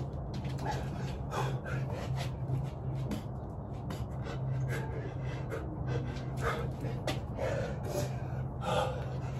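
A person breathing hard and gasping while exercising, with short scuffs and thumps of movement, over a steady low hum.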